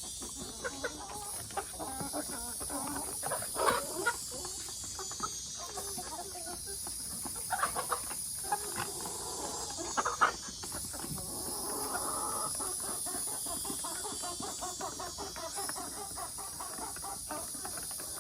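A flock of chickens clucking, with a run of short calls and a few louder ones about four, eight and ten seconds in, over a steady high hiss.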